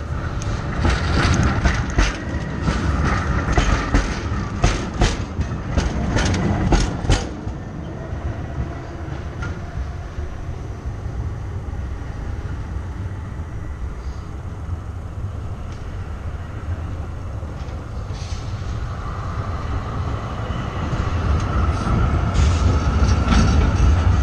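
Oslo tram running on street track: a quick run of wheel clicks and clatter over rail joints and switches, then a quieter rolling rumble. Near the end a tram draws close and passes, the rumble growing louder with a steady whine.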